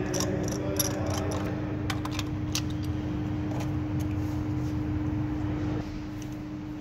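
Steady background hum with a few light metallic clicks in the first few seconds: a spark-plug socket and extension being turned and lifted out by hand.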